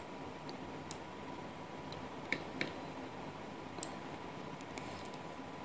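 A few faint computer mouse clicks, two of them close together about two and a half seconds in, over a steady microphone hiss with a faint steady tone.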